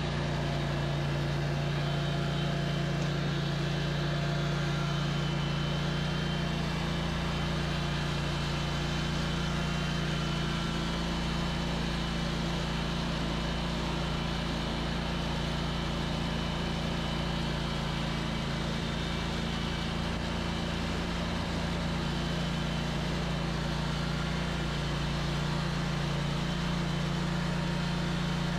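An engine running steadily at one constant speed, with a low, even hum that does not rise or fall.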